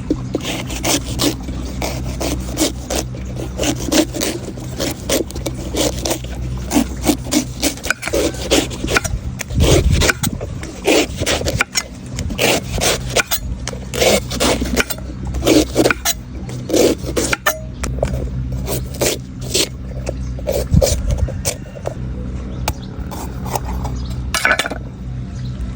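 Knife cutting and scraping the husk of a golden coconut: many short, sharp strokes at an irregular pace, some drawn out into scrapes, over a steady low hum.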